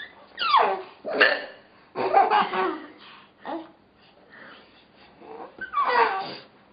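A baby laughing in several loud bursts of high squeals that fall steeply in pitch, between a woman's short, sharp hiccups.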